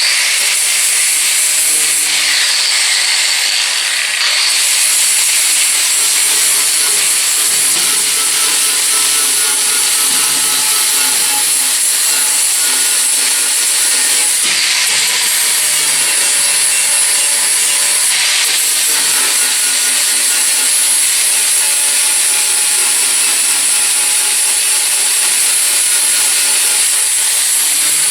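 Angle grinder grinding down welds on steel to blend them in, running steadily with a high, hissing grind. Its sound shifts twice as it bears into the metal and eases off, a few seconds in and again about halfway through.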